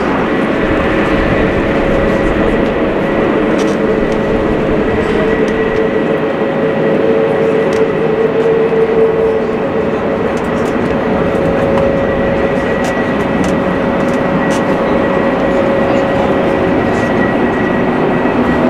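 Airbus A350-1000's two Rolls-Royce Trent XWB-97 turbofans running at high power in flight overhead: a loud, steady roar with a steady whine running through it.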